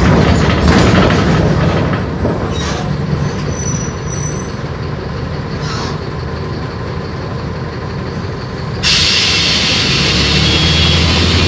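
Mercedes-Benz OF-1418 bus with a Marcopolo Torino body, its diesel engine running with the body clattering and rattling. About nine seconds in, a loud steady hiss starts suddenly.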